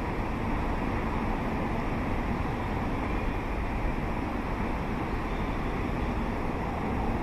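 Steady outdoor urban background noise on a railway station platform: an even rumble and hiss with no distinct events.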